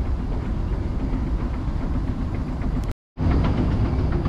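Steady low mechanical rumble of a running escalator and moving walkway, with faint ticks over it. It cuts out completely for a moment about three seconds in, then resumes.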